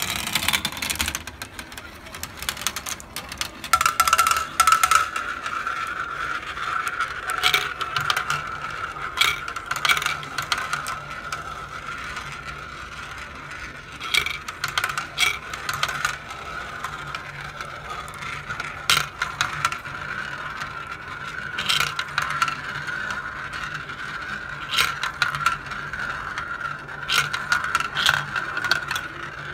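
Glass marbles rolling around the plastic spiral and funnel bowls of a toy marble run. A steady rolling whir sets in about four seconds in, with frequent sharp clicks as marbles strike each other and the track.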